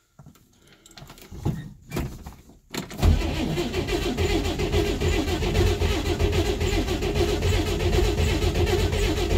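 About three seconds in, the starter of a 1963 Corvair Monza Spyder begins cranking its air-cooled, turbocharged flat-six, turning it over steadily and quickly without the engine catching. The engine is failing to start after a year of standing, and the owner decides it needs starting fluid.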